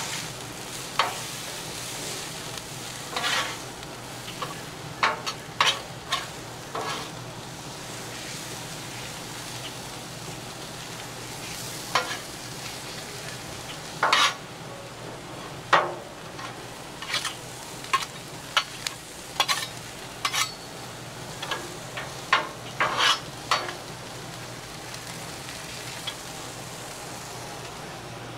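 Corn kernels sizzling on the steel top of a Blackstone flat-top griddle, with the scrape and clack of metal spatulas tossing and spreading them in irregular strokes. The spatula strokes stop a few seconds before the end, leaving only the steady sizzle.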